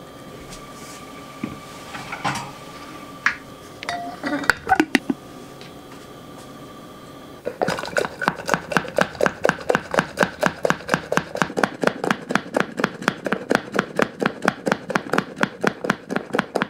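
Bodum hand-pump milk frother being worked fast, its mesh plunger driven up and down through hot water and matcha at about five strokes a second to whip it into a fine foam. It is preceded by a few sharp clinks and knocks of the glass jug and its lid being handled.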